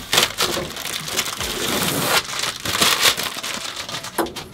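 Clear plastic packaging wrap crinkling and rustling as it is handled and pulled away, a dense crackle with a short lull about two seconds in.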